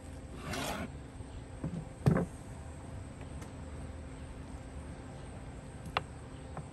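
Knife slicing through a rack of smoked pork ribs on an end-grain wooden cutting board: a short scrape of the blade through the crusted meat, then two wooden knocks about two seconds in, the second the loudest, and a light click near the end.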